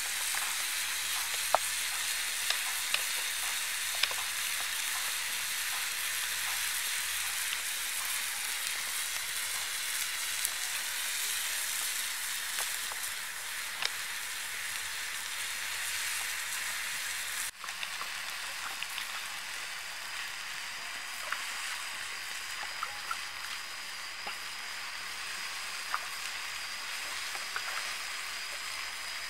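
Beef and vegetable skewers sizzling on a stone slab heated over a wood fire: a steady high hiss of frying juices with scattered sharp pops.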